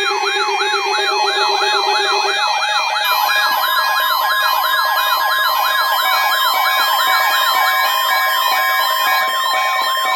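Several weather alert radio receivers sounding their alarms together during a weather radio required weekly test: a siren-like warble sweeping up and down about two and a half times a second, layered with other warbles and on-off beeps. A steady alert tone near 1 kHz, the weather radio warning tone, joins about three seconds in.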